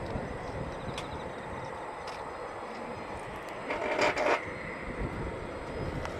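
Distant Eurofighter Typhoon's twin EJ200 turbofans giving a steady rushing jet noise as the fighter moves along the runway, with a brief louder rasp about four seconds in.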